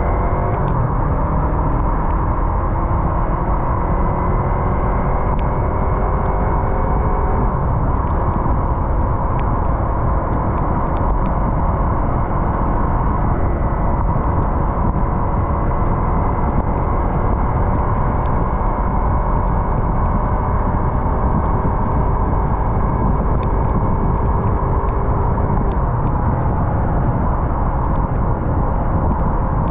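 Yamaha MT-03 motorcycle engine running under way, its pitch shifting gently with the throttle in the first several seconds and then holding steadier, over a constant rush of wind and road noise.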